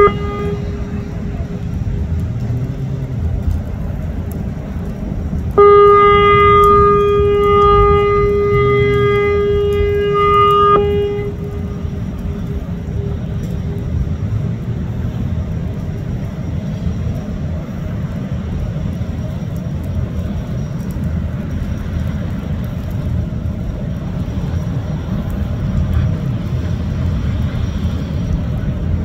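A ship's horn ends right at the start, then gives one long steady blast of about five seconds starting about five seconds in. Under it runs the steady low rumble of a Kawasaki Jetfoil's gas turbines and water jets as it comes in hullborne at low speed to berth.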